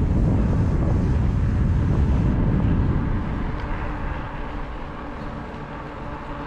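Wind buffeting the camera microphone as a bicycle rolls along, a loud low rumble that eases off after about three seconds.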